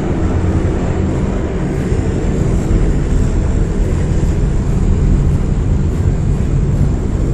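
Steady drone of an airplane's engines in flight, heard from inside the cabin.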